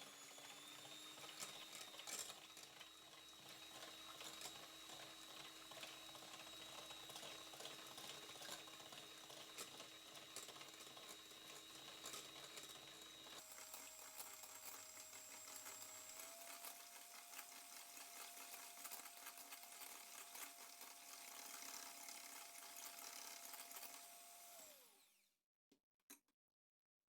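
Faint electric hand mixer running steadily while it beats cake batter. Its whine jumps higher about halfway through, then winds down and stops near the end.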